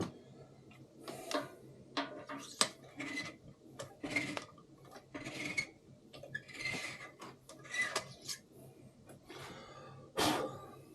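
Hand-turned valve seat cutter scraping the valve seats of a Cummins diesel cylinder head in a light clean-up cut: a run of short rasping strokes about once a second, with a few light metal clicks, the loudest stroke near the end.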